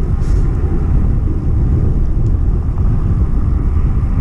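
Steady rushing and buffeting noise of riding a bicycle, mostly wind on the microphone of a camera carried on the bike.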